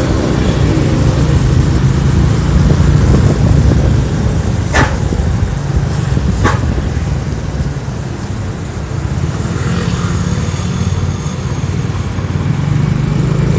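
Heavy diesel bus engine running close by amid road traffic, a steady low rumble that eases slightly after the middle. Two sharp clicks sound about five and six and a half seconds in.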